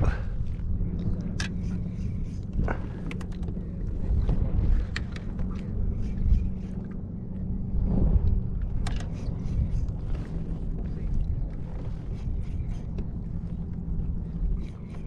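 Wind buffeting the microphone as a low, unsteady rumble, over water lapping against a plastic kayak hull, with scattered light clicks and knocks.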